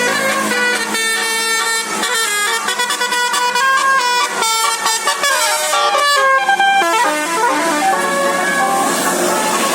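Bus's Basuri telolet horn playing a melody of quickly changing notes, with a falling slide about halfway through.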